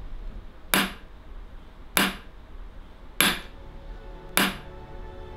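Hammer blows on a steel doming punch set in a steel dapping block, four sharp metallic strikes about one every second and a quarter, each with a brief ring. This is jewelry doming, the punch pressing metal into the block's round cavities.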